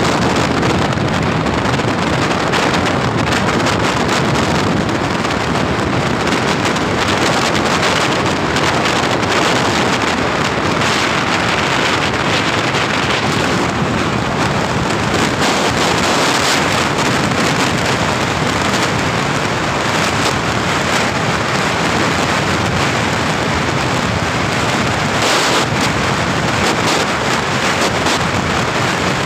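Loud, steady wind buffeting the microphone in the open back of a moving truck, over the truck's road and tyre noise at speed.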